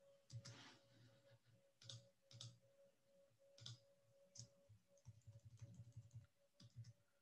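Faint computer keyboard keystrokes: scattered single key presses, then a quick run of keys about five seconds in, over a faint steady hum.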